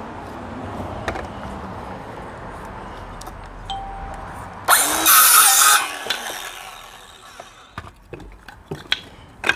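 Ryobi cordless circular saw cutting through a thin wood slat: about a second of loud cutting a little past the middle, then the blade spinning down with a falling whine. A few light knocks near the end.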